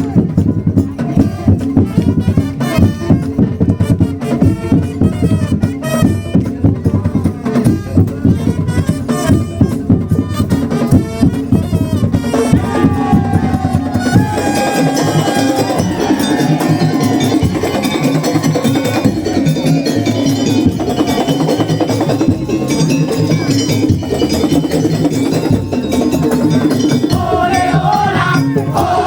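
Madurese daul ensemble music: drums and other percussion play a fast, dense rhythm. About halfway through, a sustained melody line comes in over the beat.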